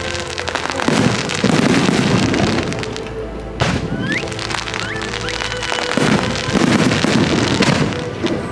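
Fireworks going off over show music: two long stretches of dense crackling, with a sharp bang a little before the middle followed by short rising whistles. The music's held tones run underneath.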